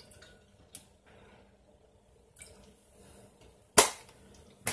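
Objects being handled: a faint click and a brief rustle, then a single sharp knock near the end, the loudest sound.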